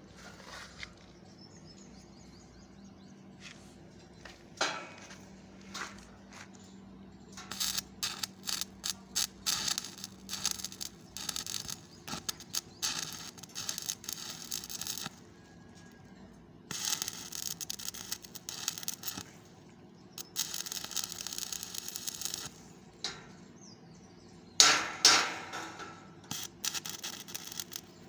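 Electric arc welding crackling in several runs a few seconds long, stopping and starting again between beads. Near the end comes a single loud, sharp knock with a short ringing after it.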